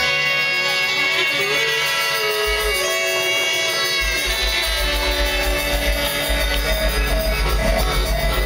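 Live band playing an instrumental passage with held saxophone and keyboard notes. A low pulsing bass beat comes in about four seconds in.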